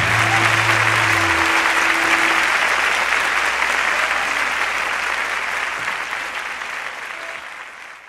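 Audience applause on a live concert recording, fading out gradually to the end. The last low notes of the song's final chord die away in the first second and a half.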